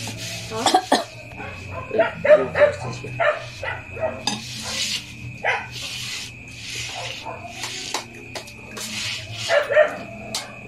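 Close-up eating sounds: chewing and wet mouth smacking as rice and meat are eaten by hand, in short irregular bursts. Short animal cries come in a few times, loudest about two seconds in and near the end.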